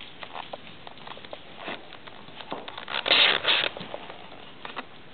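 Chihuahua puppies' claws and paws tapping and scrabbling on a hard floor as they play, in scattered small clicks, with one louder rustling burst lasting about half a second roughly three seconds in.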